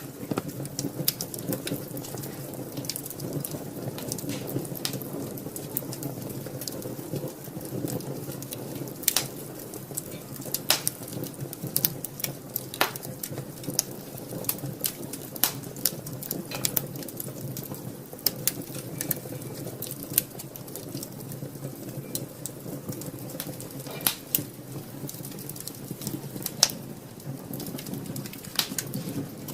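Wood fire burning in a fireplace: a steady low rush of flames with frequent, irregular sharp crackles and pops of the burning wood.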